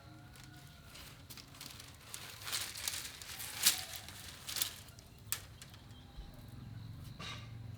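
Thin bamboo strips rustling and crackling as they are handled and worked by hand, with several sharp clicks, the loudest a little under four seconds in.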